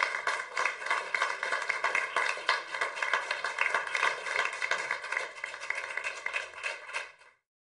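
Applause: many hands clapping in a dense, irregular patter that fades and cuts off about seven seconds in.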